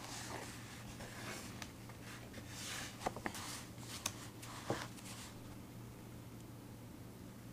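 Handwriting on paper: soft scratching strokes with a few small sharp clicks among them, stopping about five seconds in.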